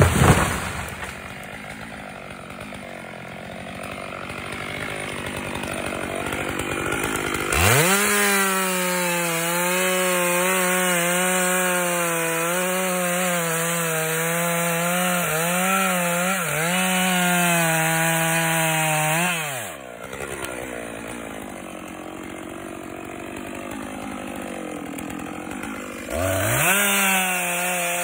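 Chainsaw running low after a sharp knock at the start, then opened up to full throttle about eight seconds in and held there, bogging briefly twice as it cuts into wood. It drops back to a low run after about twelve seconds and revs up again near the end.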